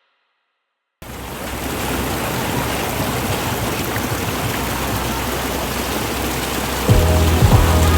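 Cold spring water flowing and rushing steadily, starting suddenly about a second in. Background music with a beat comes in near the end.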